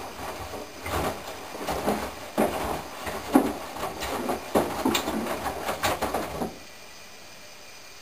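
Candy GrandO Plus front-loading washing machine on its main wash: the drum turns and wet laundry and water slosh and flop against the drum, with the motor running. The tumbling stops about six and a half seconds in, leaving only a faint steady hiss.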